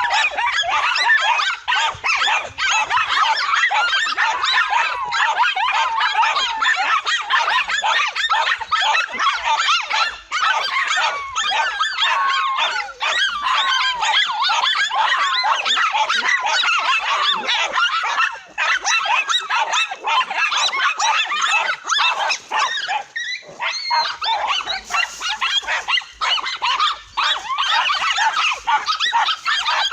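A pack of dogs barking without a break, many voices overlapping into a continuous din.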